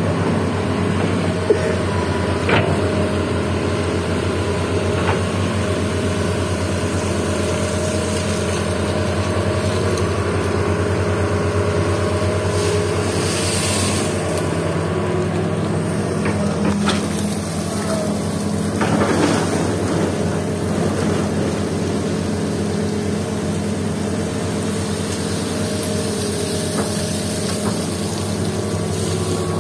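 Hitachi hydraulic excavator's diesel engine running steadily under load as it digs and swings sand and gravel, with a few brief clanks and a short hiss partway through.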